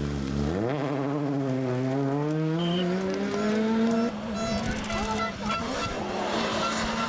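Rally car engine accelerating hard, its note climbing steadily for about three seconds, then dropping about four seconds in and holding a steady pitch.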